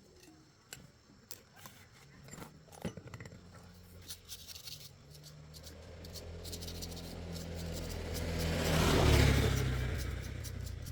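A motor vehicle passing by: its engine swells to a peak near the end and then fades. Light clicks and taps come before it.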